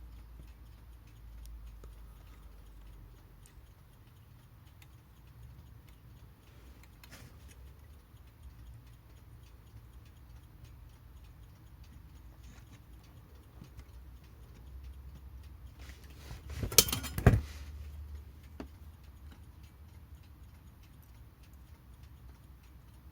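Faint ticking of a mechanical clock, with small clicks of tools and metal parts being handled on a clock movement, and a pair of sharp knocks about 17 seconds in.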